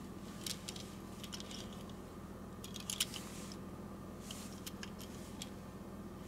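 Light clicks and taps of a die-cast toy bus being handled and turned over in the fingers, with fingernails and plastic wheels knocking against it; the sharpest tap comes about three seconds in. A faint steady hum runs underneath.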